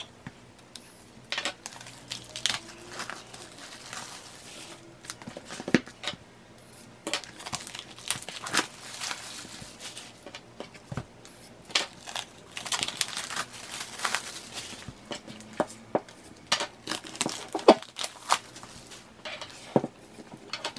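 Plastic shrink wrap crinkling and tearing as it is peeled off album packages, with irregular sharp crackles and small knocks from handling the albums.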